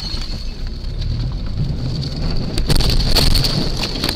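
Road and wind noise inside a moving car, picked up by a dash cam's microphone, with a steady high whine. About three seconds in there is a cluster of knocks and rattles as the dash camera is jolted loose in a collision.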